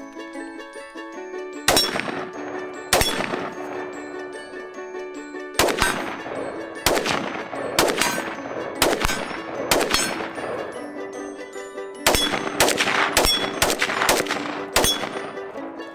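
PSAK-47 semi-automatic rifle in 7.62x39 firing more than a dozen single shots, some spaced apart and others in quick strings with short pauses, over background music.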